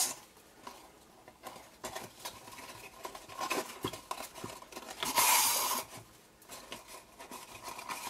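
Seam binding ribbon drawn with a needle through punched holes in a cardstock box: a soft rasping hiss, the longest about five seconds in, among light rustles and taps of the card being handled.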